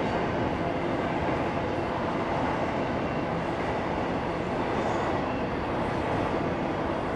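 BNSF double-stack intermodal freight train's cars rolling past, a steady noise of steel wheels on the rails that holds an even level throughout.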